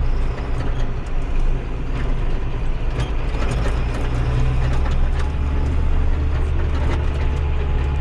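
Farm tractor engine running steadily, heard from inside the cab as a low drone, with scattered light clicks and rattles.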